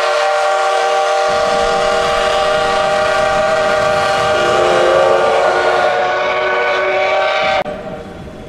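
Steam locomotive whistle sounding one long blast of several notes together, shifting slightly in pitch about halfway, then cutting off suddenly near the end and leaving a much quieter rushing noise.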